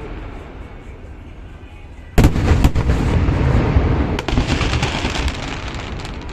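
Fireworks shells bursting: a low rumble, then a sudden loud bang about two seconds in, followed by dense crackling and rumbling with a few more sharp bangs.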